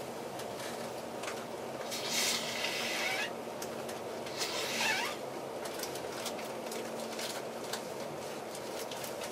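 Steady running noise heard from inside a passenger train moving slowly along a station platform, with two short hisses, one about two seconds in and one about five seconds in, and scattered light clicks.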